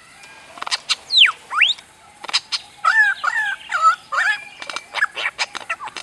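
Superb lyrebird singing at close range: a few sharp clicks, then two sweeping whistles, one falling and one rising, followed by repeated two-pitch warbled phrases about halfway through and a fast run of clicks and short notes near the end.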